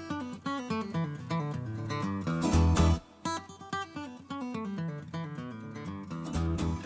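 Background music: an acoustic guitar picking and strumming.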